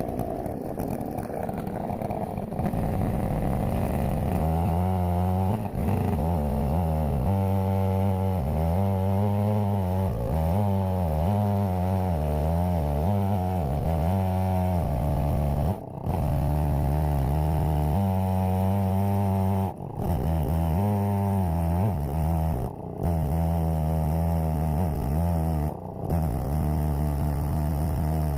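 Two-stroke Holzfforma Stihl 070-clone chainsaw with a 36-inch bar and chain, running at high throttle in an Alaskan mill while ripping a cherry log into boards. Its pitch wavers as the chain loads up in the cut, with a few brief drops in level.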